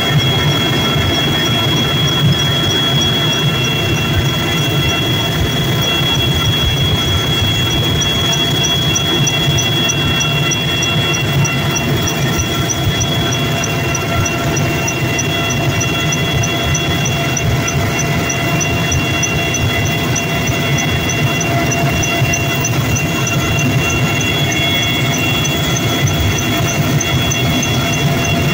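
Helicopter engines and rotor heard from inside the cabin as it lifts off and climbs. A dense low rumble runs under several steady high whining tones, with a faint, fast, even ticking high up.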